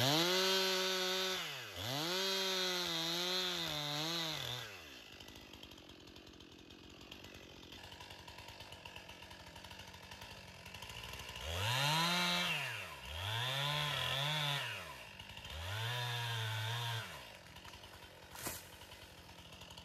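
Stihl MS 261 C-M two-stroke chainsaw revving to full throttle in bursts and dropping back to idle between them. There are two long bursts at the start, a few seconds of idle, then three bursts in quick succession, the last held at a lower pitch.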